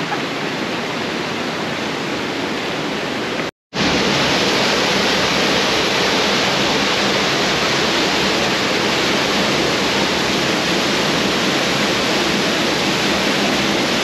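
Steady rush of a rocky mountain stream. After a brief silent break a few seconds in, a louder and brighter steady rush of a waterfall pouring into the canyon.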